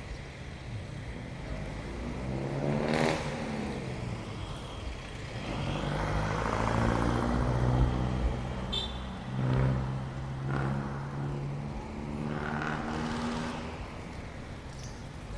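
City street traffic: motor vehicles passing one after another, engine notes swelling and bending in pitch about four times over a steady low engine hum and road noise.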